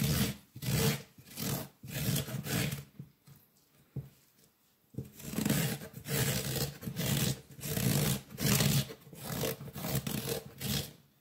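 A spoon scraping the soft seedy core out of a halved courgette in quick repeated strokes, about two a second. The strokes pause for about two seconds a third of the way in, with a single click in the pause, then carry on.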